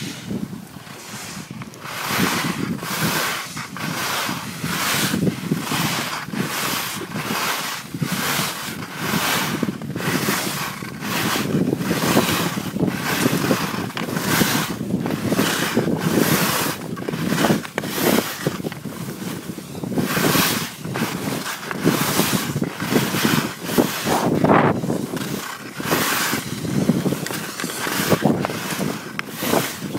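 Wind buffeting the microphone during a ski descent, with the rush of skis on snow surging and fading about twice a second.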